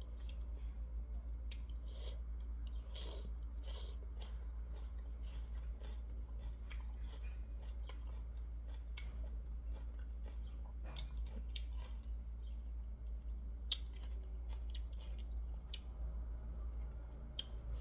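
A person chewing and eating a meal close to the microphone, with many small scattered clicks and crunches, over a steady low hum.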